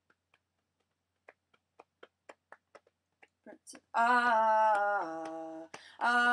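Part of a song: soft clicks about four a second, then about four seconds in a loud held vocal line that steps down in pitch, starting again near the end.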